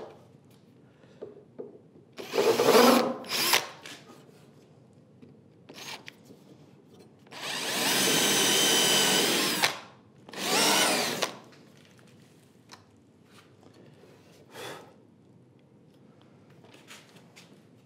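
A cordless drill running into the wooden leg of a workbench in several bursts: a short one early, then a steady run of about two seconds, and another short run straight after.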